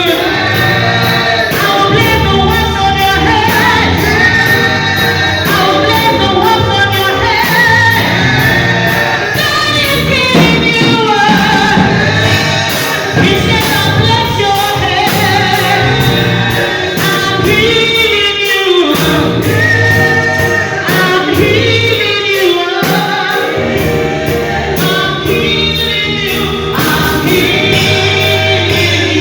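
Choir singing a gospel song with band accompaniment and a steady beat.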